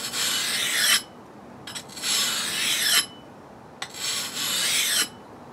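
Steel edge of a Cold Steel Viking Hand Axe scraping along a wet whetstone in three long sharpening strokes, each about a second long with short pauses between. It is a dry, rasping hiss as the stone grinds the bevel of the edge.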